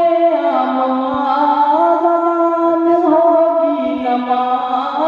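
A man singing a naat, an Urdu devotional song in praise of the Prophet Muhammad, solo and unaccompanied into a microphone. He holds long, drawn-out notes that step from one pitch to the next without pausing.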